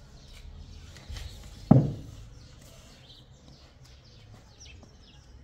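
Small birds chirping faintly in the background, with one loud, dull thud a little under two seconds in.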